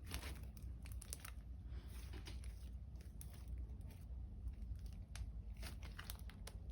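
Faint, scattered scratching and clicking from hands working craft materials at a table, over a low steady hum.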